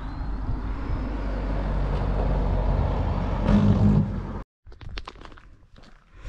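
A car driving past on a narrow road, its engine and tyre noise growing louder as it comes close, then cutting off abruptly about four and a half seconds in. After that come a walker's footsteps on a lane.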